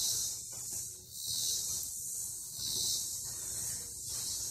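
A chorus of insects in the trees: a loud, high-pitched hiss that swells and fades every second or so.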